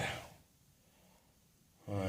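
A man's voice trailing off at the end of a phrase, then near silence, then a short voiced sound from him, like a hum or the start of a word, near the end.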